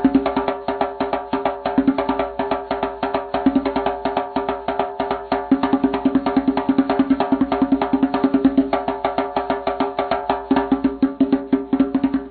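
Background music built on a fast, even run of sharp percussion strikes over a steady held tone.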